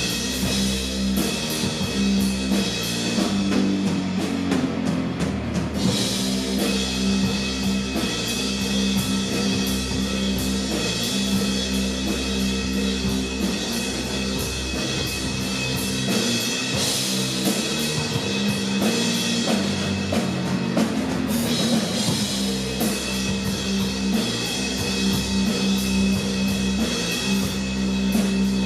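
Instrumental doom/stoner rock: heavily distorted, low-tuned fuzz guitars and bass over a steady drum kit beat with crashing cymbals.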